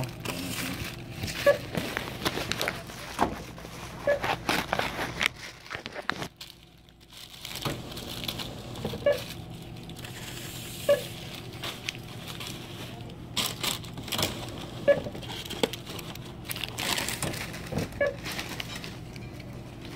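Rustling and crinkling handling noise from a phone held in the hand as a camera, with scattered irregular clicks and knocks as fingers shift on it.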